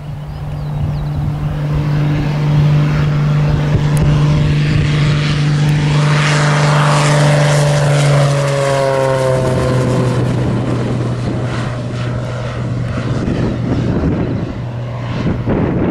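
Cessna 182Q Skylane's six-cylinder Continental O-470 engine and propeller running at takeoff power as the float plane climbs out, a loud steady drone. About eight seconds in the pitch drops as the plane passes and draws away, and the sound eases off near the end.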